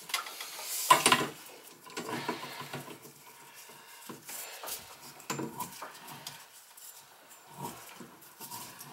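Scattered light metallic clicks and scraping from a hand tool being worked on a copper water pipe, at the shutoff on the supply line. The loudest clatter comes about a second in, with smaller clicks later.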